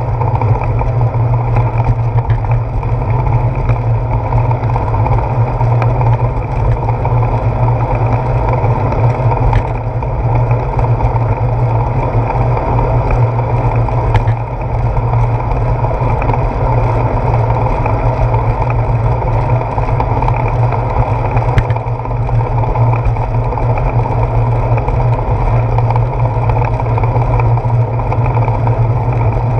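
Steady wind and road rumble on a handlebar-mounted GoPro as the bicycle rolls along a paved path, with a few short knocks from bumps in the path.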